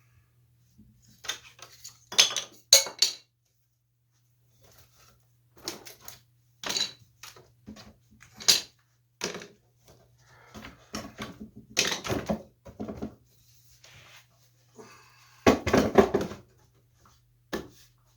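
Irregular knocks, clunks and clatter of a repaired wooden chair and workshop clamps being handled, with a longer, louder cluster of clunks near the end, over a faint steady low hum.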